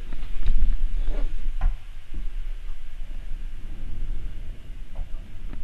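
Low, uneven rumble of a handheld camera being moved about, with a few light knocks and clicks as it is carried up into an attic.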